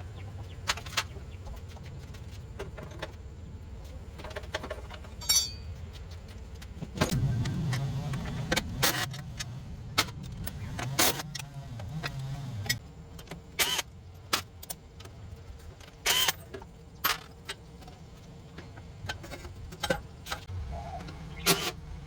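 Metal tools and parts clinking and knocking in scattered single strikes, with a low rumble for several seconds near the middle.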